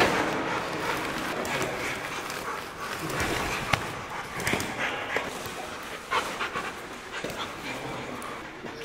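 A police sniffer dog panting, with plastic sacks rustling and a few sharp knocks as containers are set down on a concrete floor, the loudest about four seconds in.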